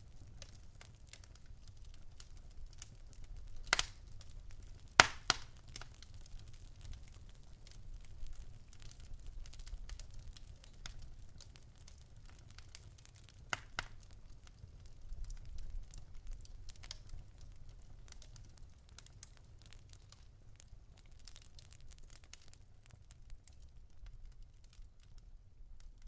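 A burning wicker man crackling, with scattered small pops and a few louder sharp cracks, the loudest about five seconds in, over a low steady rumble.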